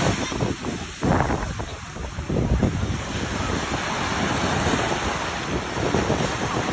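Small surf breaking and washing in the shallows at the shoreline, with gusting wind on the microphone.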